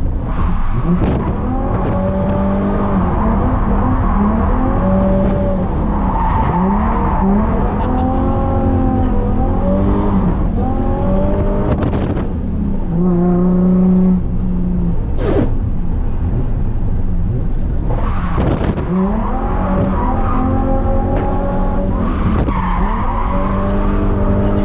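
Holden VY Commodore Calais engine revving up and down over and over through a drift run, with tyres skidding. Around the middle the revs hold steady for a second or two before falling and climbing again.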